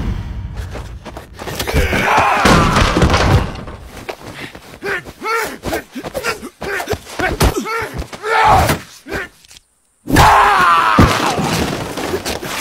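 A staged fist fight: thuds and slams of blows and bodies, with men grunting and groaning between them. The sound cuts out for a moment near the end, then comes back with a loud burst.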